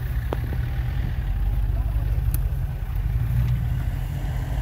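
Range Rover P38 4.6 HSE's V8 engine running steadily at low revs as the vehicle crawls away through brush.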